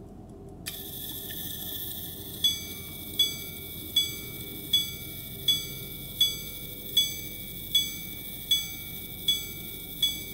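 Antique grand sonnerie pocket watch striking twelve o'clock on its gong. A faint whir starts first, then evenly spaced single strikes at one pitch follow, about four every three seconds.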